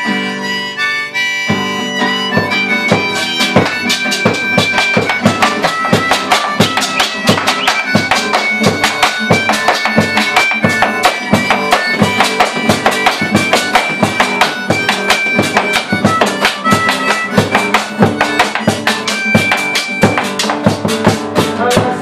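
Folk instrumental: harmonica carrying the melody over a strummed acoustic guitar, with a bombo legüero beaten with sticks. Held harmonica chords open it, and the steady rhythm of strikes comes in about a second and a half in.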